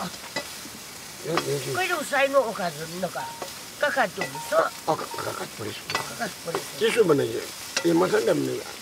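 Butter sizzling steadily in a pan over a wood fire as it cooks down into ghee, with a ladle stirring it. A man's voice talks over it in several phrases.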